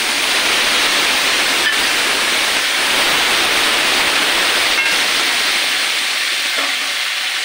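Wet spice paste sizzling loudly and steadily in hot oil in a kadhai, with a couple of faint clicks.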